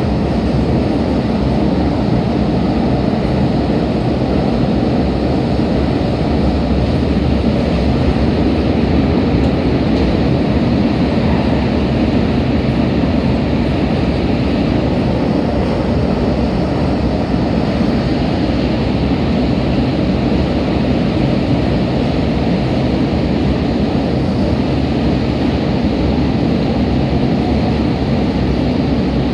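MTR K-Train electric train running at steady speed, heard inside the carriage: an even, unbroken rumble of wheels on rail and running gear.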